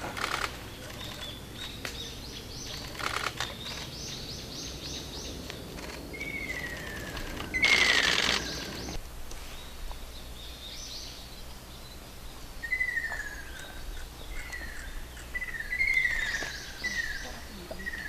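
Ruddy kingfisher calling: short falling whistled calls, coming several in quick succession in the second half. Small birds chirp higher up in the first half, and a brief loud rush of noise comes about eight seconds in.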